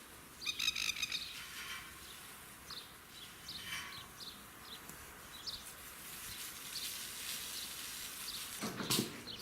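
Animal calls: short high chirps repeated every second or so, with a louder pulsing, croaking call about half a second in. Near the end a louder burst of clicks or rustling sets in.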